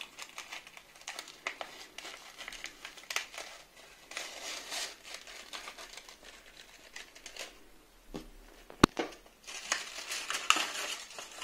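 Brown kraft paper crinkling and rustling in irregular bursts as it is folded around a small bouquet of dried flowers and tied with jute twine. One sharp click about nine seconds in.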